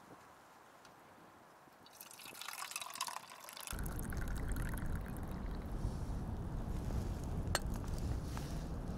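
Hot coffee being poured, faint and splashy, with the pitch rising as the vessel fills. About four seconds in, a steady low rumbling noise starts abruptly and continues, with one sharp click near the end.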